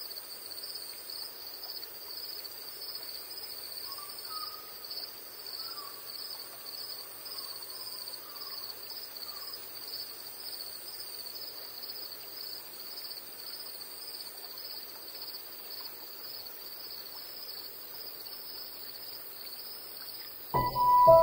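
Summer insects, such as cicadas, keep up a steady high-pitched drone with a fast, even pulsing, and a few faint bird chirps come in early. Music with bright chiming tones starts abruptly just before the end.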